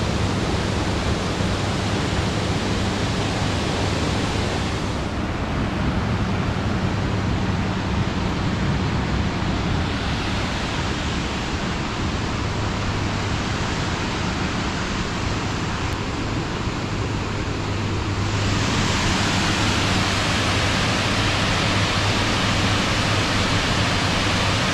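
Steady rushing of the Río Dobra, a fast mountain river. The hiss grows brighter and slightly louder about three-quarters of the way in.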